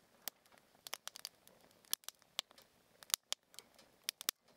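Small campfire crackling: irregular sharp pops and snaps, some close together, others with short gaps between them.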